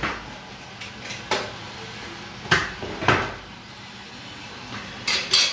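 Four separate sharp knocks and clinks of kitchen things being handled at the stove, a second or so apart, then a brief rustle near the end.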